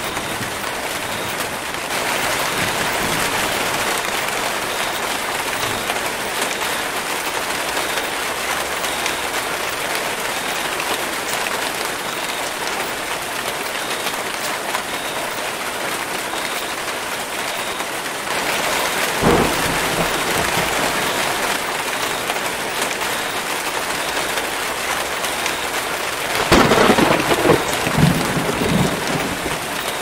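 Rain falling steadily on rainforest foliage. A rumble of thunder comes about two-thirds of the way through, and a louder, longer roll of thunder comes near the end.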